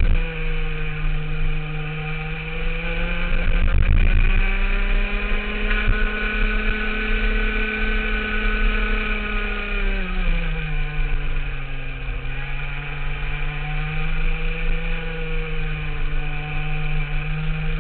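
Rotax two-stroke kart engine at racing speed, heard onboard. The revs dip briefly at the start, climb and hold high for several seconds, drop sharply about ten seconds in as the kart slows, then climb steadily again.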